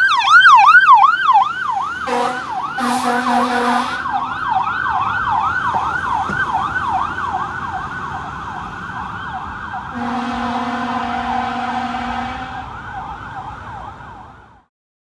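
Fire engine's electronic siren on a fast yelp, rising and falling about three times a second, with two blasts of the truck's horn, the first about two seconds in and the second about ten seconds in. The siren fades away and cuts off near the end.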